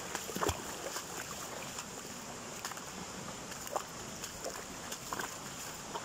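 Steady rush of a small waterfall and the creek flowing below it, with a few scattered light crunches of footsteps on dry leaves and stones.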